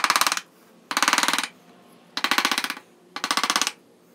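A 6 mm bevel-edge chisel cutting a small chamfer into the rim of a drilled hole in peroba hardwood. It comes as five short bursts of very fast clicking, about a second apart.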